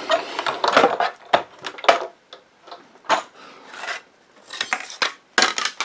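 Plastic cutting plates and a metal die being taken out of a manual die-cutting machine and pulled apart: a scraping rub in the first second, then a run of separate clacks and knocks, several close together near the end.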